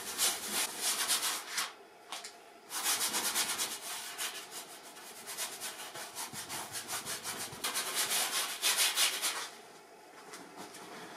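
Paintbrush scrubbing oil paint across a large canvas in quick, repeated back-and-forth strokes. The strokes pause briefly about two seconds in, resume, and stop shortly before the end.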